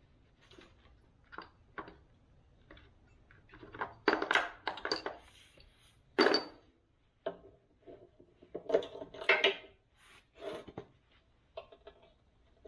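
Hand tools clinking and scraping on steel while loose tooth bolts on a new backhoe bucket are tightened. The metallic clanks come irregularly, one or two with a short ring, and are busiest around the middle.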